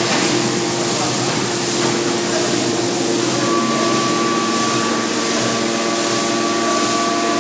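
Scrap metal crusher running under load, a loud steady machine noise with a few held tones; a higher tone joins about halfway through.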